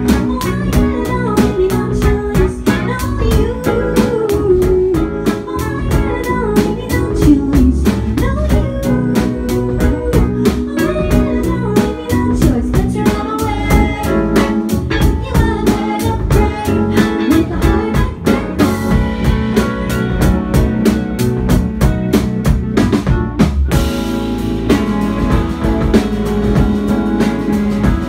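Live band playing an indie-pop song: electric guitar and drum kit keeping a steady beat, with a sung vocal line in places.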